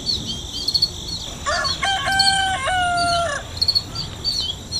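A rooster crows once, a cock-a-doodle-doo of about two seconds, over small birds chirping repeatedly at a high pitch.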